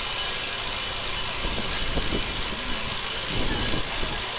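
An engine running steadily at idle, unchanging.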